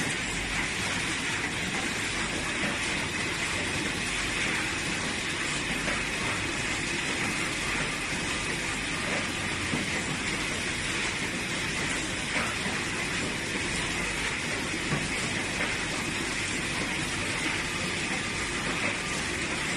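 Steady running noise of solar cell welding machinery, with a few faint light clicks now and then.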